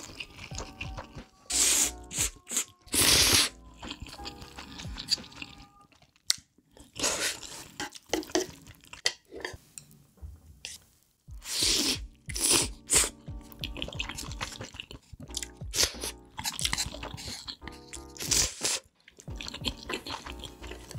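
Close-miked ASMR eating of spicy instant noodles: wet slurps and chewing in irregular bursts, over steady background music.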